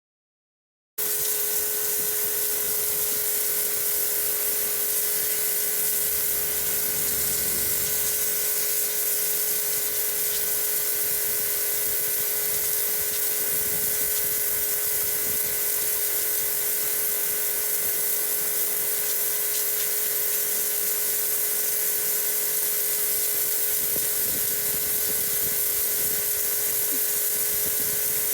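Electric pressure washer running with its jet spraying steadily against a wall to strip emulsion paint: a constant high hiss of water over a steady motor and pump whine. It starts suddenly about a second in.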